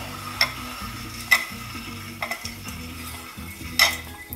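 A metal utensil stirring hot potassium hydroxide solution in a glass bowl, clinking sharply against the glass a few times, the loudest near the end, over a faint sizzling hiss from the hot lye solution.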